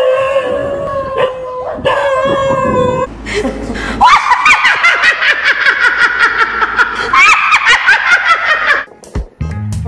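A woman laughing loudly and hysterically in quick repeated bursts, starting about four seconds in and cutting off near the end. It follows a few seconds of background music with singing.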